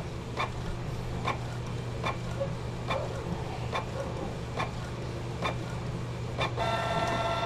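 Canon G1010 inkjet printer printing a nozzle check pattern: a steady motor hum with a regular click a little less than once a second as the print head carriage makes its passes, and a higher, steady motor whine near the end.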